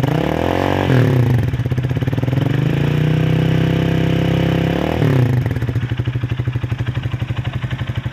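Motorcycle engine fitted with an exhaust silencer being revved: a quick blip that rises and falls about half a second to a second in, a steady held rev for about two seconds from the middle, then a drop back to a rhythmic, pulsing idle.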